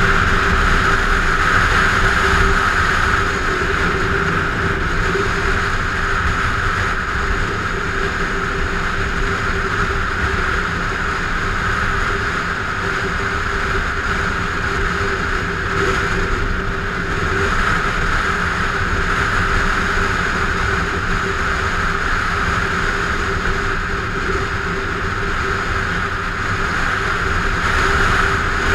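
Honda sport motorcycle cruising at steady freeway speed: a constant engine drone under heavy wind rush on a helmet-mounted microphone.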